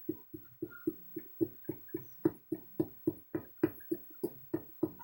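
A small pick tool tapping steadily at the plaster egg of a dinosaur fossil dig kit, chipping away to free the bones: about four short knocks a second, each with a slight ring.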